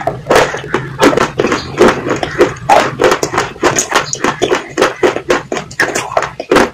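Close-up chewing of something hard and crunchy: a fast, irregular run of crunches and wet mouth clicks, several a second, over a faint low hum.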